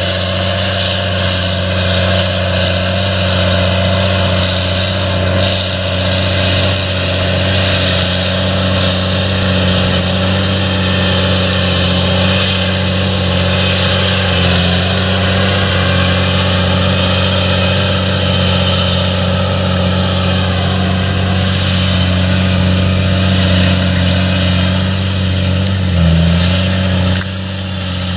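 A steady, loud low engine drone, as of a running motor vehicle, which drops in level briefly near the end.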